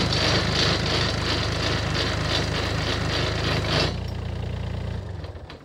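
Small diesel engine of a 1-tonne site dumper running with a steady, pulsing note, with extra mechanical noise over it for the first four seconds, then shut off about five seconds in.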